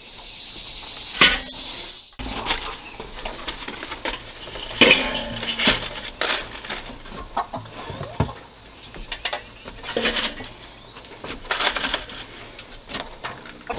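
Irregular metal clanks and rattles from about two seconds in, as a bro 'n sear metal charcoal basket is handled and fitted into a Weber kettle grill over a foil-covered charcoal grate.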